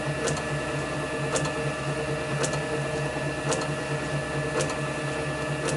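Steady machine hum with a fast flutter, and a short sharp click about once a second.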